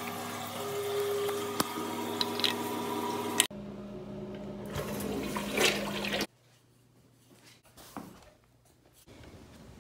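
Toilet tank refilling with a steady hiss of water and a faint held whistle. About three and a half seconds in it changes to a push-button toilet being flushed, water rushing for a couple of seconds before cutting off sharply.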